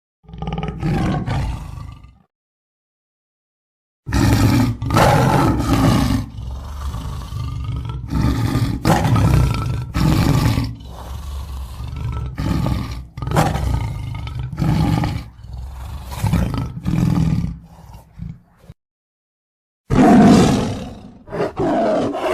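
Lion roaring: a short roar, then after a clean-cut silence a long bout of repeated roars about one a second, and after another silent gap a loud roar near the end.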